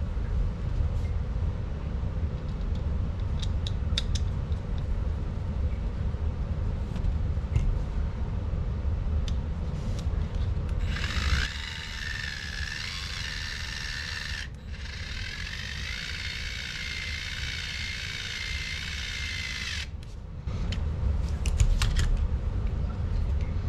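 Small power driver running in two stretches of several seconds about halfway through, a steady whine broken by a short pause, its pitch shifting slightly as it works. Before and after, a low rumble with a few light clicks.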